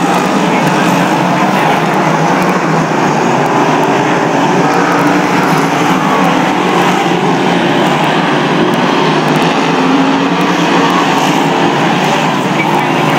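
A pack of speedway stock cars racing round a dirt oval, their engines running loud and steady.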